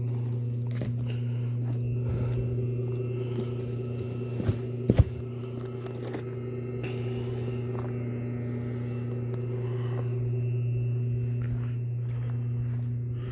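Steady electric hum of a hot tub's jet pump motor running, with two sharp knocks a little before five seconds in.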